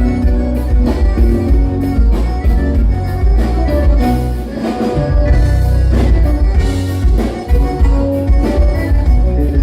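Gaúcho dance band playing a milonga, with a heavy bass line under a steady beat.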